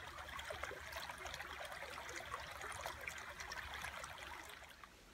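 Shallow woodland creek trickling and burbling over a stony bed, a steady babble of small splashes that cuts off near the end.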